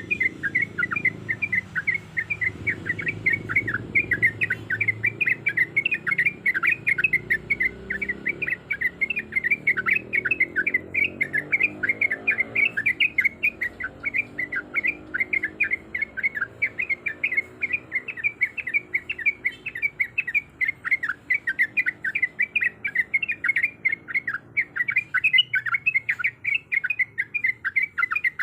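Yellow-vented bulbul (trucuk) singing its fast rolling 'ropel' song: an unbroken run of short chirps, several a second, at a steady pace.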